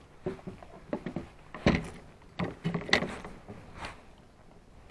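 Irregular knocks and clunks, the loudest about a second and a half in and again near three seconds.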